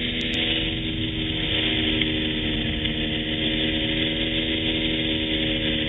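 Small propeller plane's engine and propeller running steadily in flight, heard from inside the cabin as an even drone.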